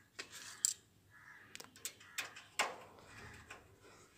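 Faint handling noise from hand work on a gas geyser's wiring as a ground wire is screwed down: several small sharp clicks and rustles, spaced irregularly over the first three seconds.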